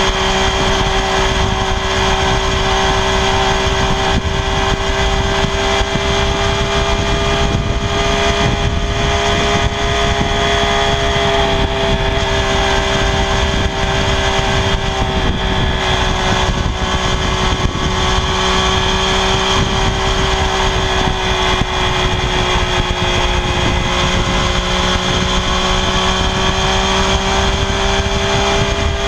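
Triumph Daytona 675R's 675 cc inline three-cylinder engine running through its stock exhaust at a steady, high-pitched note, the pitch drifting only slightly up and down.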